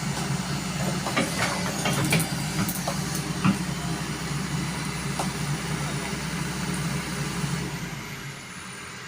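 Kobelco hydraulic excavator's diesel engine running steadily, with a handful of sharp knocks in the first few seconds, the loudest about three and a half seconds in. The engine sound drops quieter near the end.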